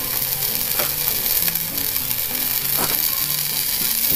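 Tomato and spice masala sizzling steadily in a nonstick frying pan, over quiet background music with a stepping low bass line.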